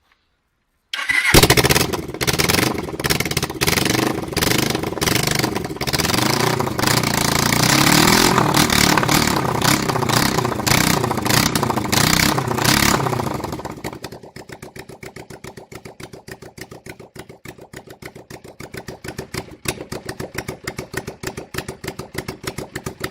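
Suzuki GS 500 E parallel-twin engine with no exhaust pipe fitted, starting about a second in and running very loud at raised revs. About fourteen seconds in it drops to an idle of evenly spaced blop-blop pops, which the owner puts down to the cylinder drawing air back in through the open exhaust.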